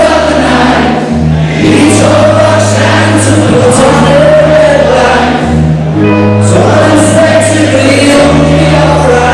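A rock band playing live: electric guitar and bass under a male voice singing, very loud throughout.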